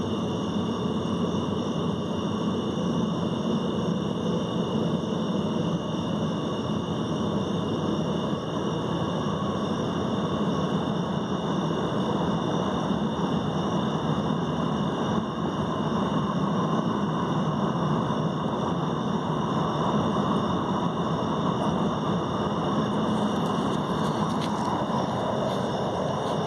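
A steady low mechanical hum, like a running engine or motor, with a constant high-pitched drone layered over it. It cuts off abruptly at the very end.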